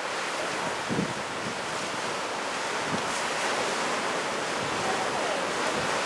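Rough, wind-whipped surf washing along the shore under a steady rush of wind, with gusts buffeting the microphone now and then.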